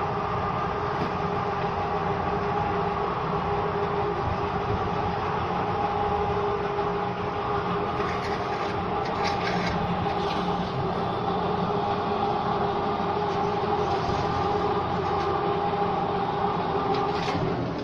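Concrete pipe making machine running, its steel pipe mould turning on the roller shaft: a steady rumble with a steady whining tone, dropping away near the end.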